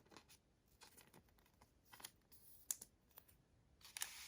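Faint handling of trading cards: a few scattered light clicks and taps, then a brief brushing slide near the end.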